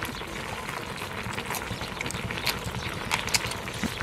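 Close-up eating sounds of a man sucking and chewing meat off a grilled bullfrog leg, with a few scattered wet smacks and clicks over a steady background hiss.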